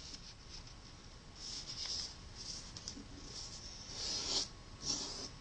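A square of origami paper being folded and creased by hand against a tabletop: a few short rustles and brushing strokes, the loudest about four seconds in.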